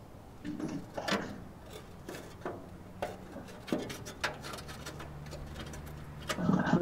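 Metal barbecue grill parts knocking and clinking as they are slid and set back into place in the grill, a series of separate knocks with a louder clatter near the end.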